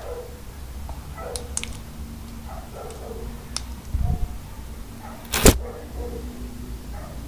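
Slime being handled: scattered small clicks and pops, with a dull low thump about four seconds in and one loud sharp pop about five and a half seconds in.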